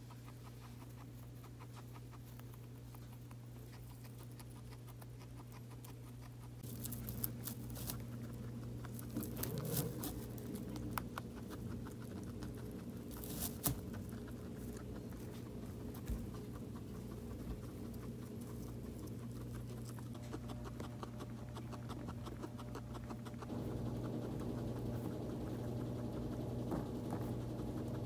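Guinea pigs rustling through loose hay and chewing it, a dense fine crackle with occasional sharper crunches that starts about seven seconds in. A steady low hum lies underneath.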